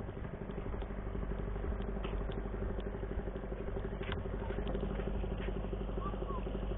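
An engine idling steadily: a constant low, even hum, with a few faint clicks over it.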